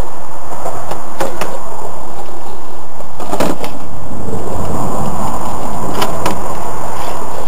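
Steady loud rumbling noise with several sharp knocks, the biggest a little over three seconds in, as a small Axial AX10 radio-controlled rock crawler tips over and tumbles onto its side on loose rock.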